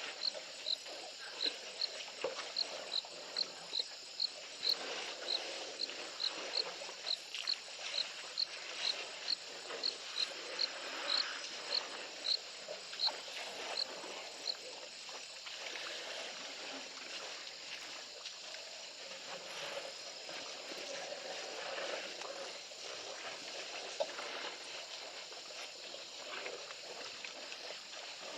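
Waterhole ambience: a high, short chirp repeats about twice a second, then stops about halfway through. Underneath run a steady insect hum and faint scattered rustles and knocks.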